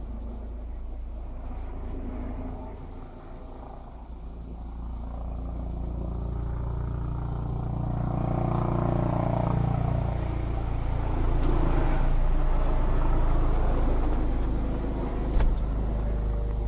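Low-flying helicopter heard overhead but out of sight, a rumble that grows louder over several seconds and then holds. There is a short click near the end.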